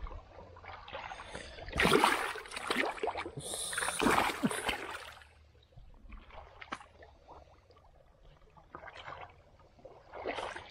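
Water splashing and sloshing in a shallow pond, loudest from about two to five seconds in, then fainter scattered splashes.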